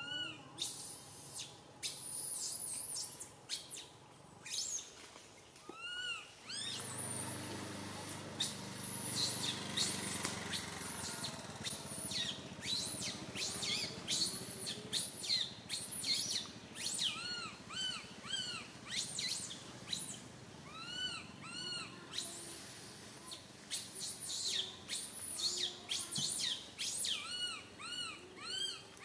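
Baby monkey crying: a long run of short, high-pitched, arched whimpering squeals, repeated many times in quick series. A low rumble sits under the squeals from about seven to eleven seconds in.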